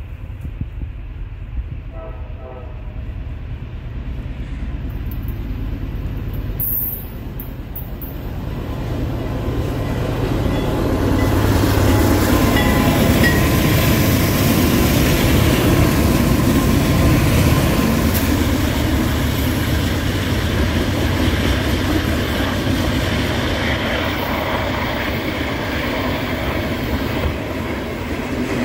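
Freight train led by three GE C40-8W diesel locomotives approaching and passing, the engine noise building to its loudest as the locomotives go by, then covered hopper cars rolling past on the rails.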